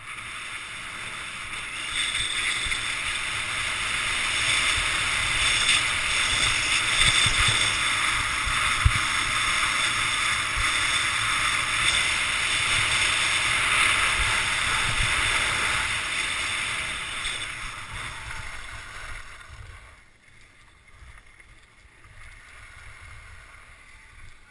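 Skis hissing and scraping over packed snow on a downhill run, with wind buffeting the microphone as a low rumble. The sound builds over the first couple of seconds and stays loud through the middle. It dies away near the end as the skier slows to a stop.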